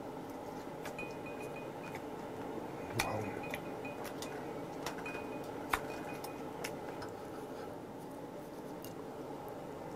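Metal tongs clicking and tapping against a grill rack and dishes several times, the sharpest clicks about three seconds in and just before six seconds, over a steady sizzle of eel pieces cooking on a portable gas grill.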